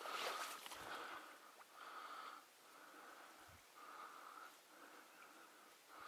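Faint wheezy breathing: a thin whistling note that sounds with each breath, roughly once a second, with a soft thud or two.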